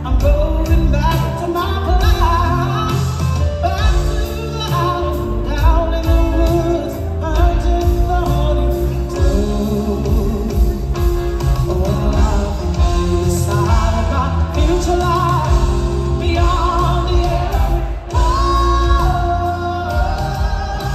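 A woman singing live through a PA over a full band with drums, the melody moving and holding long notes over a loud, steady band backing.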